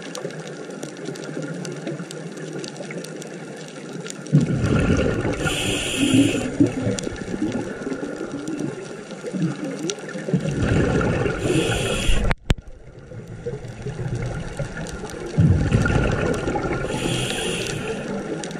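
Underwater sound of a scuba diver breathing: three loud, rumbling bursts of exhaled bubbles from the regulator, about five to six seconds apart, over a steady underwater hiss.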